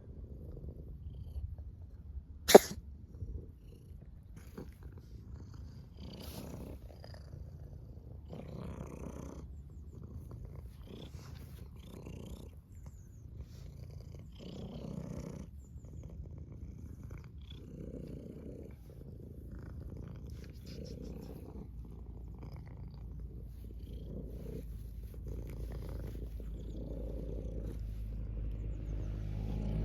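A domestic cat purring, the purr swelling and fading in repeated pulses every second or two. A single sharp, loud sneeze comes about two and a half seconds in.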